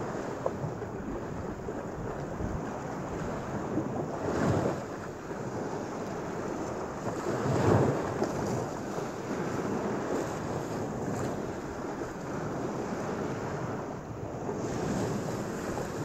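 Lake Michigan surf washing onto a sand beach and splashing against old steel sheet pilings at the waterline, a steady wash with two larger waves surging through, the louder one near the middle.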